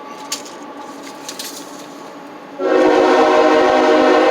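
A few faint clicks, then about two and a half seconds in a loud horn starts suddenly and holds a steady chord of several tones.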